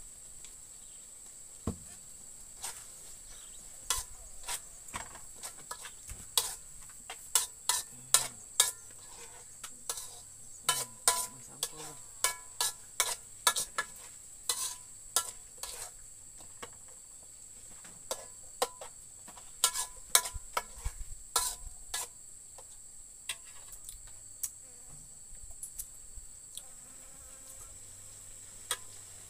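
A metal spoon stirring and scraping sambal in a metal wok over a gas stove: irregular clinks and scrapes in quick runs, thinning out near the end, over a steady high-pitched whine.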